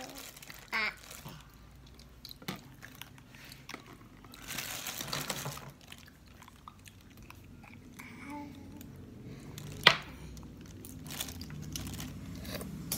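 A toddler eating small clams from their shells by hand: chewing, with scattered light clicks of shell. There is a longer hissing stretch about four seconds in and one sharp click near ten seconds.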